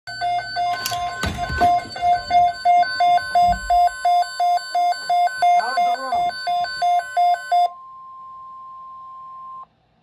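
Midland NOAA weather alert radio sounding its watch alert: a shrill beep pulsing about three times a second over the steady 1050 Hz NOAA Weather Radio alert tone. The beeping stops, and the steady tone runs on alone for about two seconds before cutting off suddenly, just ahead of the broadcast voice message.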